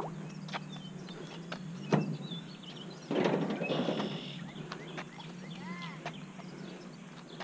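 Handling noise from a fishing rod being held over a pier railing: light clicks throughout, a sharp knock about two seconds in, then about a second of rustling.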